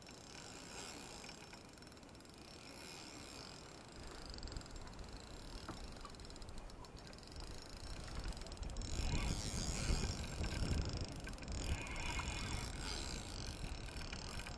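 Spinning reel being worked while a fish is played on a bent rod, with mechanical reel noise. A low rumble grows louder from about halfway through.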